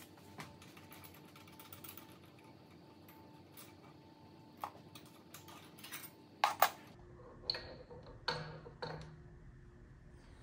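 Scattered light clicks and knocks from parts and tools being handled in a workshop, the loudest pair about six and a half seconds in, over a faint steady hum.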